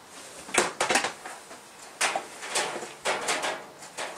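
Clicks and clattering knocks from the plastic body of a Hoover steam mop being handled. There are a few sharp knocks between half a second and a second in, then a loose run of them from about two seconds on.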